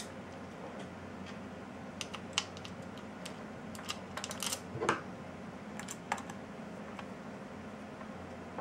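Scattered light clicks and taps from the plastic housing of a Hakko 802 desoldering gun being handled as its cover is seated and cover screws are set in place, with a small cluster of clicks about halfway through, over a faint steady hum.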